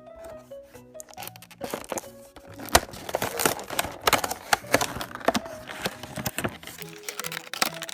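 Background music with a melody, under a run of sharp clicks and crackles of plastic toys and their packaging being handled, starting about a second and a half in.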